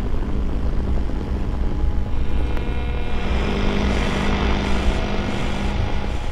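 A low rumbling drone with many steady tones layered over it, thickening about two seconds in and easing off near the end: a composed sound-art texture.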